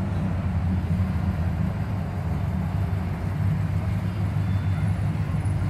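Steady low engine rumble from cars and pickup trucks driving past in a line.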